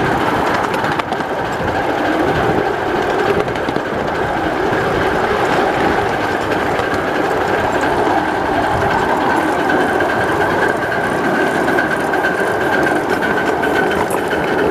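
A 5-inch gauge live-steam model of a GNR Stirling Single locomotive running steadily along a ground-level track, heard from just behind it: a continuous running noise of the engine and wheels on the rails, with faint clicks.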